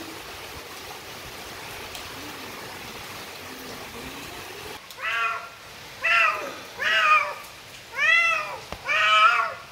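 Domestic cat meowing five times, about one call a second, starting about halfway through, each meow rising then falling in pitch. An orange-and-white cat calling at a screen door to be let in.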